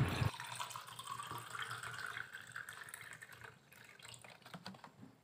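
Water poured from a plastic bottle into a steel tumbler, a splashing fill that trails off over about three seconds.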